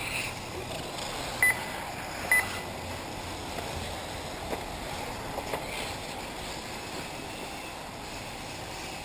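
Electric 1/8-scale off-road RC buggies running on the track: a steady faint noise. Two short, high electronic beeps about a second apart early on are the loudest sounds, with a few small ticks later.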